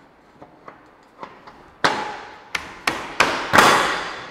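Black powder-coated aluminum hand rail struck hard by hand, five sharp blows about a second and a half in, each ringing briefly, after a few light taps.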